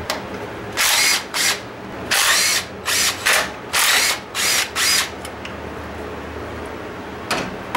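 Electric impact gun spinning out 10 mm engine-bay bolts in about eight short trigger pulls, most within the first five seconds.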